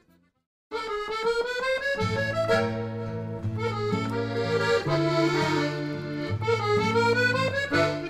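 Music led by an accordion playing a melody over steady held bass notes, starting suddenly after a short silence just under a second in.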